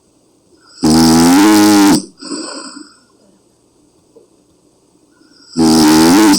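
Woman snoring loudly: two long, deep snores with a clear pitch, about five seconds apart, the second near the end, and the first followed by a shorter, softer breath.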